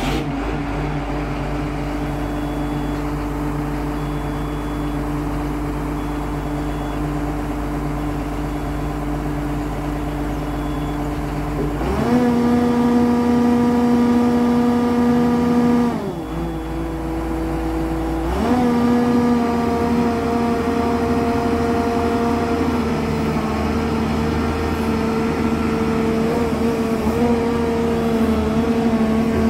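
Hyundai R215L excavator's diesel engine running just after start-up, holding a steady idle, then rising in speed about twelve seconds in, dropping back briefly a few seconds later and rising again to run at the higher speed for the rest of the time, with small wavers in pitch near the end. Faint short beeps sound every second or two over the first ten seconds or so. The boom is worked and rises, showing the cleared boom control-valve spool now works.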